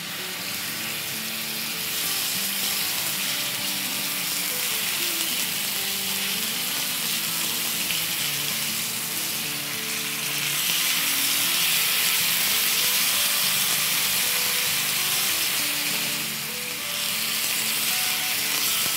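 Marinated chicken strips sizzling in hot oil in a frying pan as they are laid in with tongs; the sizzle starts suddenly as the chicken hits the oil and then holds steady.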